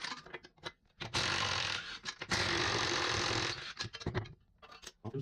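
Ratchet wrench clicking in two runs of about a second each, with a few separate clicks and knocks around them, as a bolt's nut is worked loose.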